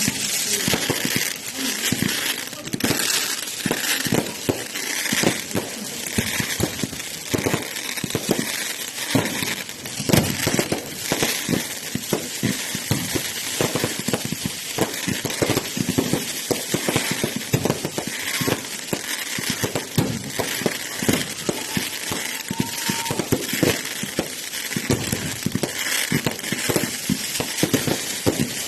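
Fireworks crackling: a dense, irregular run of rapid sharp pops and crackles that keeps going without a break.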